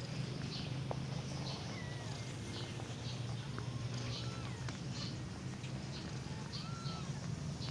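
Faint, thin squeaks and tiny mews from 12-day-old kittens nursing against their mother, a few scattered through, over a steady low hum.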